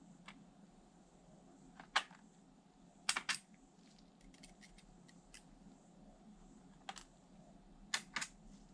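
Sharp clicks and taps of hard parts being handled while a laptop is taken apart: about six distinct clicks, two of them in quick pairs, with lighter ticks between.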